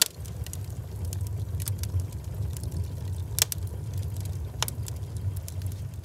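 Rain on the cabin's tin roof heard from inside: a steady low rumble with scattered sharp ticks of drops.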